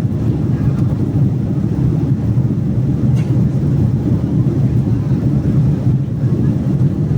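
Steady, loud low rumble of a jet airliner's cabin in flight: engine noise and rushing air.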